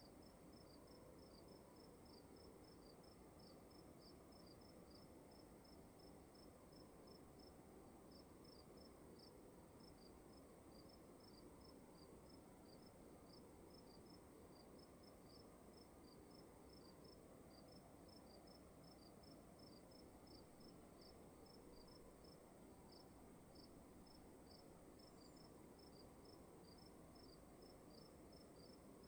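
Crickets chirping faintly in a steady, regular rhythm of a few chirps a second, with a brief pause about seven seconds in, over a continuous high-pitched trill and a low room hiss.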